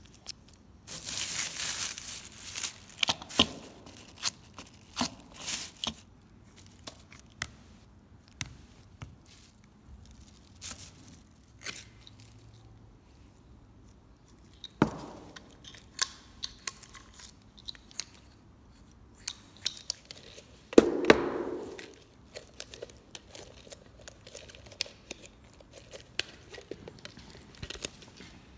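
Plastic crinkling and rustling with scattered clicks and knocks, as gloved hands handle a foam paint roller and a clear plastic mixing cup over plastic sheeting. There are louder stretches of rustling about a second in and again about two-thirds of the way through.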